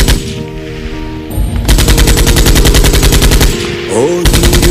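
Machine-gun fire laid in as a sound effect: a short volley at the very start, then two long bursts of rapid automatic fire, the first about a second and a half in and the second starting near the end, over the background song.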